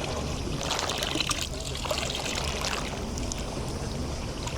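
Small sea waves lapping and splashing against the shore, with brief splashes about a second in and again midway. Underneath runs a steady low engine hum, typical of a boat's motor out on the bay.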